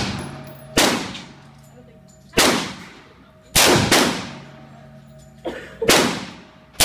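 AR-style rifle fired in single shots, about five reports spaced roughly a second apart with two close together near the middle, each trailing off in an echo. Two fainter cracks come just before the last shot.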